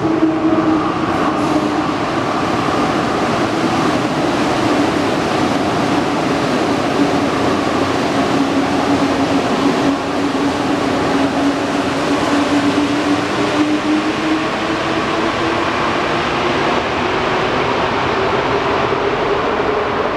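Alstom metro trains running through an underground station, a steady loud rumble with an electric motor whine that sinks slightly in pitch and then climbs through the second half.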